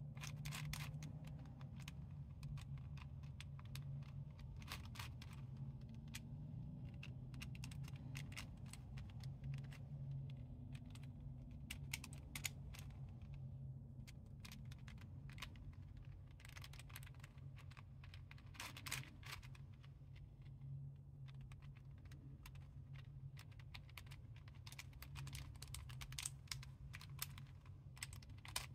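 Plastic puzzle pieces clicking and clattering as the circular sections of an intersecting-circles twisty puzzle are turned by hand, in irregular runs of clicks, over a steady low hum.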